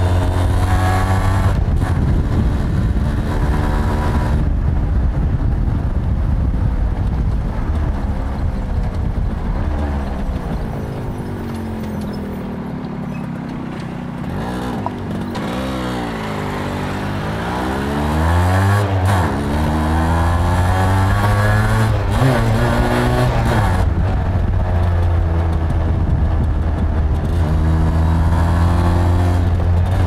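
Suzuki AX100's single-cylinder two-stroke engine running under way, with its buzzy two-stroke exhaust note. The note falls and quietens as the bike slows for a crossing about halfway through, then climbs again in a few rising revs through the gears as it pulls away, and holds steady to the end.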